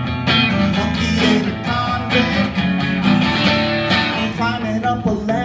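Silvertone electric guitar strummed through an amplifier, chords in a steady rhythm in an instrumental passage between sung lines.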